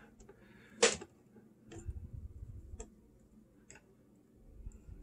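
Small clicks and taps of a turntable's automatic-mechanism linkage being worked against its metal motor plate by hand: one sharper click just under a second in, then three fainter ones about a second apart, with soft handling noise between.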